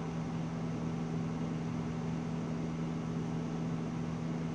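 Steady low hum of room background noise, two even tones over a faint hiss, with no change through the pause.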